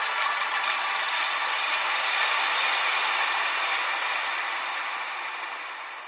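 Chime ringtone: a dense, high shimmer of many small chime strikes ringing together. It fades out over the last two seconds.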